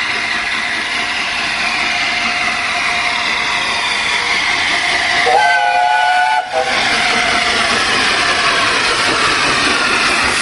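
Steam locomotive 60163 Tornado, a Peppercorn A1 Pacific, working with a steady hiss of steam. A little after halfway a whistle blows for about a second.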